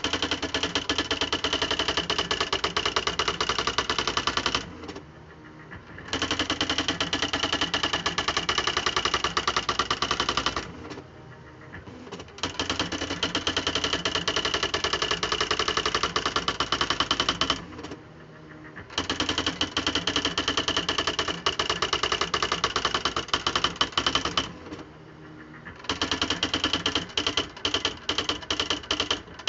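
Smith Corona Display Dictionary electric typewriter (model NA3HH) printing: long runs of very fast, even type strikes lasting several seconds each, broken by short pauses. Near the end the strikes become separate, with small gaps between them.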